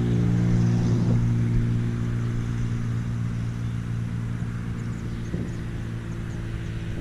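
An engine running steadily at one pitch, a constant hum that slowly fades.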